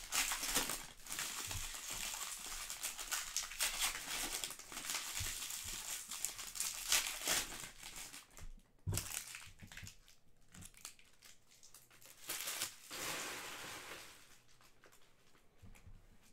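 Foil trading-card pack wrappers of 2020 Panini Select soccer packs crinkling and tearing as the packs are ripped open. The sound dies down about fourteen seconds in.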